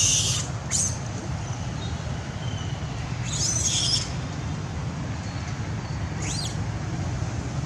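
A few short, high-pitched animal calls that rise and fall, spaced a couple of seconds apart, over a steady low rumble.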